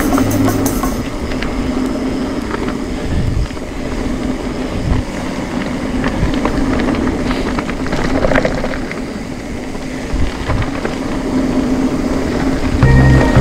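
Specialized Levo SL e-mountain bike rolling fast down a gravel trail: a continuous noise of tyres on the loose surface, with frequent small clicks and rattles from the bike. Background music cuts out about a second in and comes back near the end.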